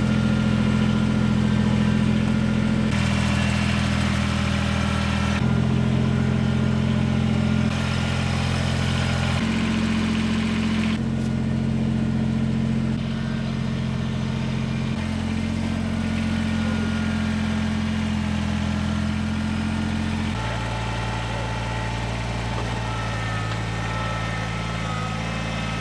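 Kubota compact tractor-loader-backhoe's diesel engine running steadily, its pitch jumping abruptly several times.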